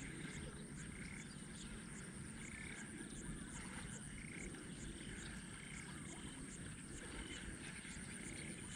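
Frogs calling across a lily-pad marsh: short calls repeating every second or so. Under them runs a steady low rumble, and above them a high, even ticking about two or three times a second.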